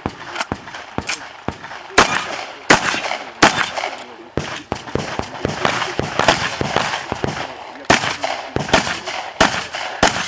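A shooter firing a long gun through an IPSC practical-shooting stage: a string of sharp gunshots, some in quick pairs, irregularly spaced with short pauses as he moves between positions. Each shot is followed by a brief echo.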